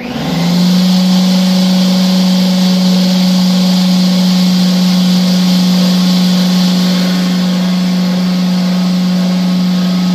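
A motor-driven machine switches on suddenly and runs steadily. It gives a loud low hum over a rushing hiss, its pitch climbing briefly as it comes up to speed and then holding level.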